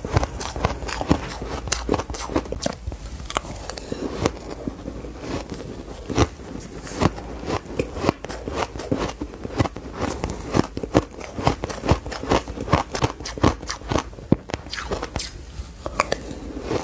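Crushed ice being chewed close to the microphone: a fast, uneven run of crisp crunches, several a second.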